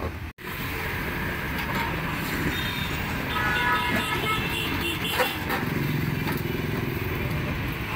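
Steady roadside traffic noise of motorbikes and cars going by. The sound cuts out for an instant just after the start.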